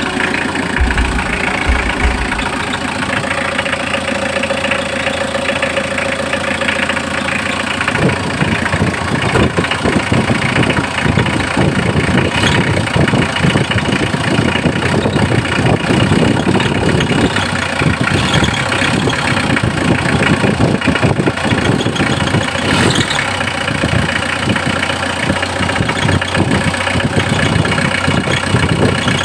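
Mitsubishi L300 FB van's engine idling with a steady rough mechanical running noise. A steady whine over it stops about eight seconds in.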